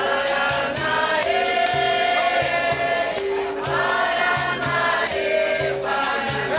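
Capoeira roda music: a group of voices singing long held notes together over berimbaus, pandeiros and an atabaque drum, keeping a steady rhythm.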